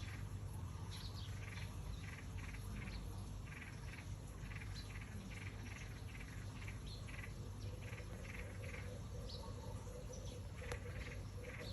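Small birds chirping: runs of short chirps repeated about three times a second, with a few higher, sliding notes, over a steady low hum.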